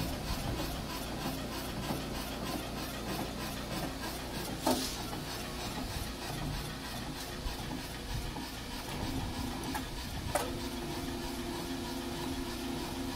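Hitachi PF110F Super Surfacer running with a steady mechanical noise. A sharp knock comes about a third of the way in and another about three quarters through, after which a low steady hum joins.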